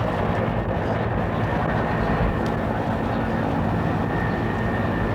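Steady helicopter engine and rotor noise, with a thin high whine held throughout.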